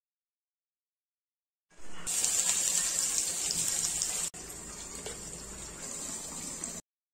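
Halved pointed gourds frying in hot oil in a kadai: a steady sizzle with small crackles. It starts about two seconds in and drops to a quieter sizzle just after four seconds.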